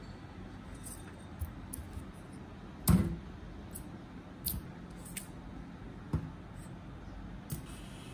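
Muffins in paper liners being lifted out of a metal muffin tin and set down, with scattered light clicks and knocks, the loudest one about three seconds in.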